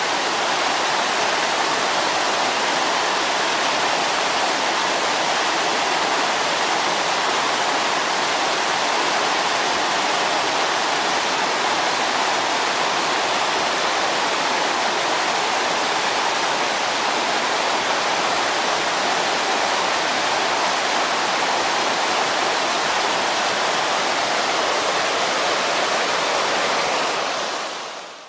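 Steady rush of a fast mountain stream tumbling over rocks and boulders, fading out near the end.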